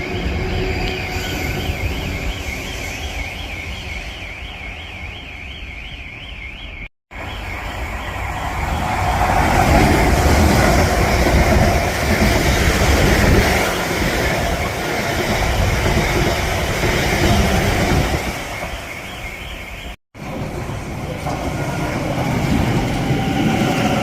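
Trains passing through the station, with the rumble and rush of wheels on the rails rising to a peak and easing off. A high warbling tone sounds over the first few seconds. The sound cuts off sharply twice.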